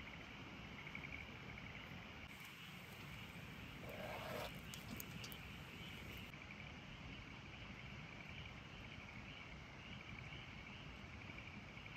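Faint chorus of frogs calling, a steady pulsing trill, with a brief rustle about four seconds in.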